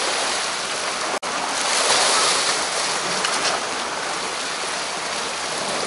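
Sea surf washing against the rocks below a shoreline ledge, a steady rush of water, which cuts out for an instant about a second in.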